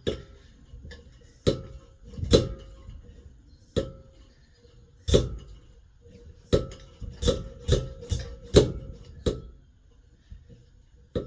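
Hand pump of a Swiss army petrol stove being worked, about ten sharp knocking strokes at an uneven pace, quicker toward the end, over a faint steady tone. It doesn't sound right; the owner puts it down to seals and rubbers dried out from long disuse.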